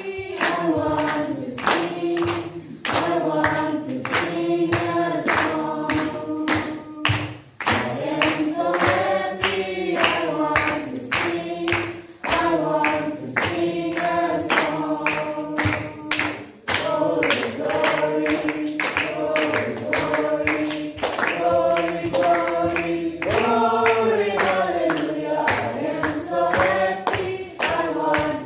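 A group of voices singing a hymn together without instruments, with hand clapping keeping a steady beat.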